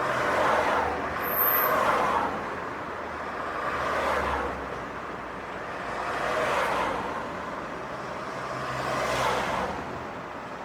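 Street traffic: cars passing one after another, about five in a row, each a swell of engine and tyre noise that rises and fades, over a steady low rumble.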